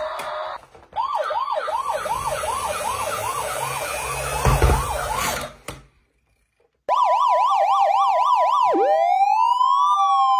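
Toy ambulance's electronic siren whooping, a quick rise and fall about three times a second, with a thump about four and a half seconds in. After a second's break, a clean siren switches between a rapid two-tone yelp and one slow rising-and-falling wail.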